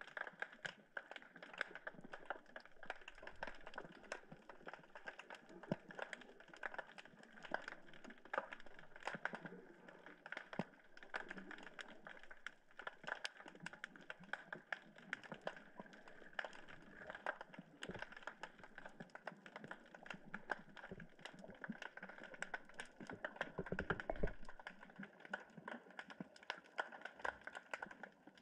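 Dense, irregular clicking and crackling picked up by an underwater camera, with a few dull low thumps near the end.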